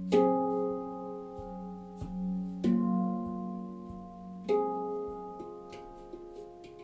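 Manik handpan tuned to the F#2 Nordlys scale, played with the fingers. Several notes are struck a second or two apart, and each rings on into the next over a steady low tone.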